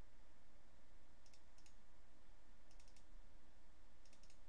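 Computer mouse button clicking in quick double-clicks, a few clusters about a second apart, over a faint steady low hum.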